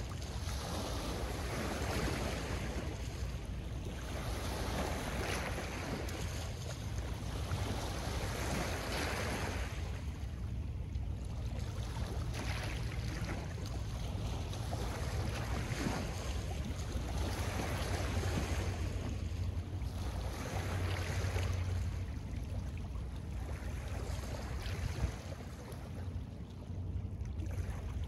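Small lake waves washing onto a pebble and rock shore, swelling and fading every couple of seconds, over a steady low wind rumble on the microphone.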